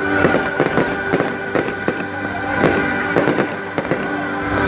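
Fireworks display: a rapid, continuous string of explosions, about four bangs a second, with music playing beneath.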